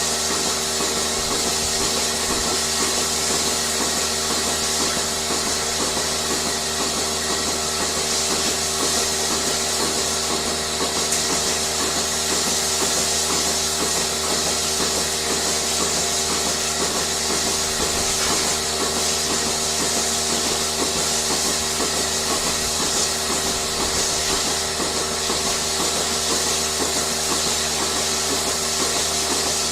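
Steady running machinery: a constant hum with several held tones, a fast even flutter and a hiss, unchanging throughout.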